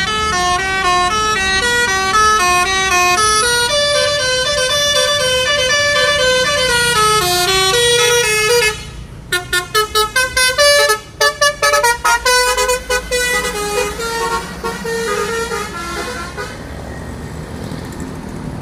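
Intercity bus's multi-tone musical air horn (a "telolet" horn) playing a tune of held notes stepping up and down, then a run of quick short toots about nine seconds in, then more held notes that fade out, over the low hum of the engine and road.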